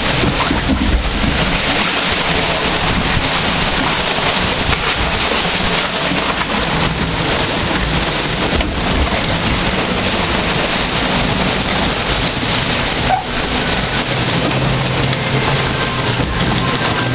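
Steady rush of flowing and splashing water in a log flume channel around the boat.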